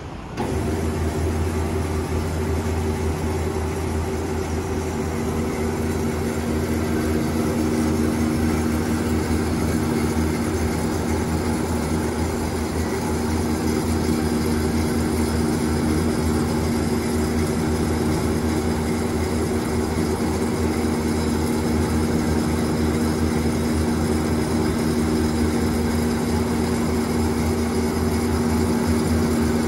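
Scotchman SH-1016 10″ x 16″ manual swing-head band saw switched on and running: a steady motor hum with several steady tones, starting about half a second in.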